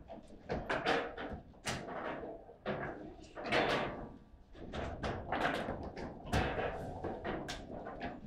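Table football in play: the ball and the plastic figures on the steel rods knocking and clacking in quick, irregular hits, with a few louder slams of shots and blocks.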